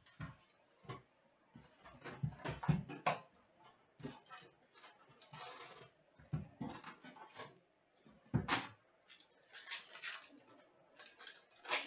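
A hockey card box and its packs being opened by hand: scattered taps and scrapes of cardboard, and crinkling of pack wrappers, with a few longer tearing or rustling stretches.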